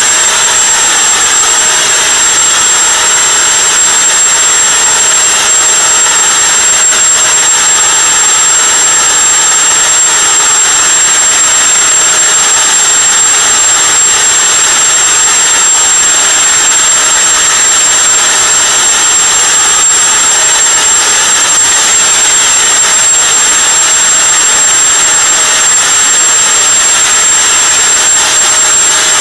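Homemade leaf blower running steadily: a loud, even rush of air with a steady high-pitched whine.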